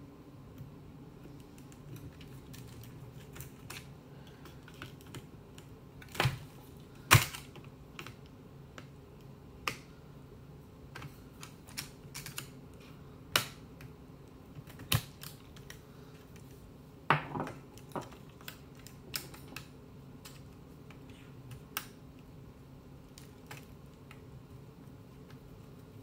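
Small scattered clicks and taps of plastic and metal as a screwdriver works the tiny screws inside a Trimline telephone handset and its parts are handled. A few louder knocks stand out, the loudest about seven seconds in, over a faint steady low hum.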